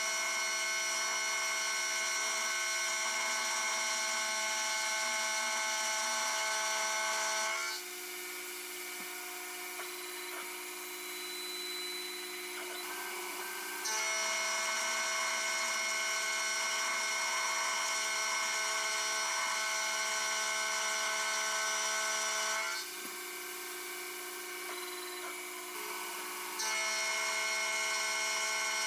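Taig CNC mini mill cutting aluminium with a 6 mm single-flute end mill: a steady, high, many-toned machining whine during each pass. It drops to a quieter hum about 8 seconds in and again about 23 seconds in, when the cutter is out of the work between passes, and returns at full level about 14 and 27 seconds in.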